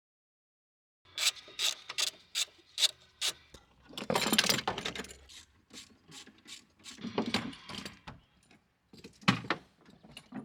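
Ratchet wrench cranked in a run of quick, even strokes, with louder scraping and knocks of metal parts being handled, as a car battery's fasteners are undone.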